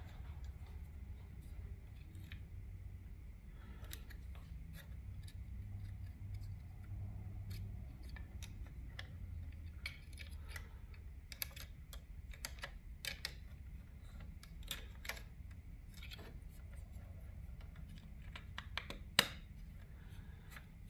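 Scattered small clicks and taps of a plastic part being handled and fitted into a garage door opener, with one sharper click near the end, over a low steady hum.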